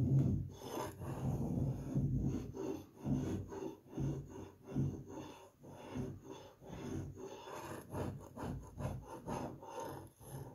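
Utility knife blade scraping across painted plasterboard in short, uneven strokes that come faster near the end, working at matt emulsion that has failed to take over the primer and pooled at the edges.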